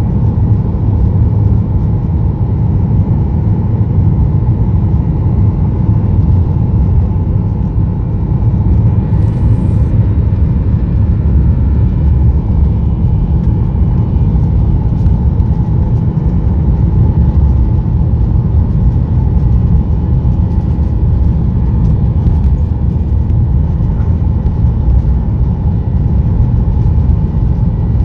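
Steady low rumble inside the cabin of a Boeing 737-800, from its CFM56-7B turbofan engines and its wheels on the pavement, as the jet turns onto the runway and rolls along it.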